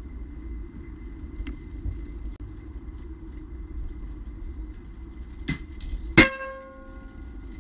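A single shot from an Air Arms S410 pre-charged pneumatic air rifle: a sharp crack followed by a brief metallic ring, the sound of a steel target struck by the pellet. A quieter click comes about half a second before the shot, over a steady low background rumble.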